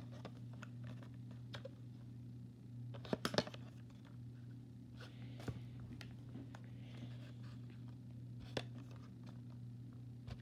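Scattered light clicks and taps from toy model trains and a cardboard box being handled and set down, a small cluster a few seconds in and single taps later, over a steady low hum.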